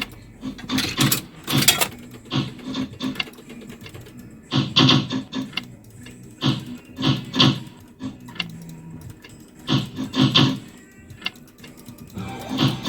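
Amusement arcade slot machine noise: irregular bursts of rapid clattering with electronic machine music underneath.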